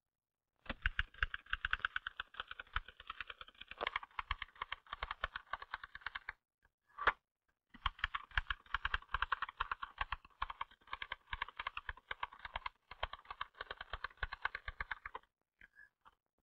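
Typewriter keys being struck rapidly and evenly, several strokes a second, in two long runs. The runs are split by a short pause about six seconds in, with one separate sharp sound in the middle of it.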